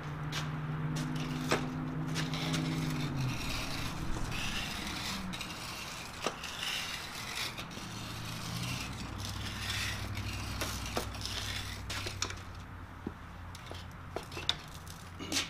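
Steel two-wheel hand truck loaded with heavy iron rolling over concrete and into a wooden shed, with scraping and scattered knocks and clanks of metal and wood. A low hum under it drops in pitch and stops about three seconds in.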